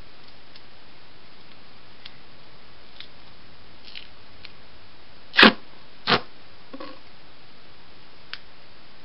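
Duct tape pulled off the roll: two short, sharp rips about two-thirds of a second apart, with faint ticks of handling before and after.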